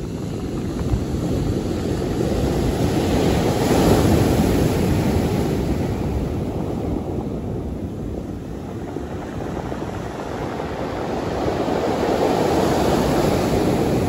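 Rough sea surf breaking on a pebble beach, a continuous rushing that swells twice, about four seconds in and again near the end, with wind rumbling on the microphone.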